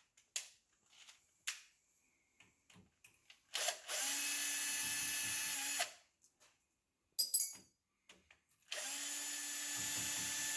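Cordless drill-driver running in two steady bursts of about two seconds each, undoing the screws of a GAZ-66 mechanical fuel pump to take it apart. Small clicks and knocks of handling come between the bursts.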